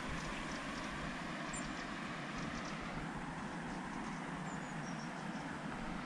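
A steady low rumble of background noise, with a few faint high chirps.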